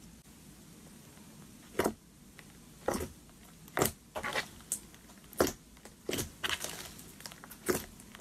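Soft, glossy slime being pressed and squeezed by hand, giving a series of sharp pops and clicks. The pops come roughly once a second from about two seconds in, with a quicker run of them in the middle.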